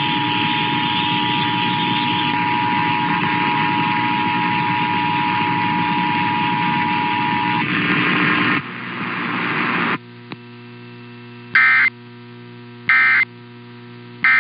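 Emergency Alert System two-tone attention signal held steady under heavy radio static, cutting off about seven and a half seconds in. The static drops away to a steady electrical hum, and near the end three short, loud EAS digital data bursts sound about a second and a half apart.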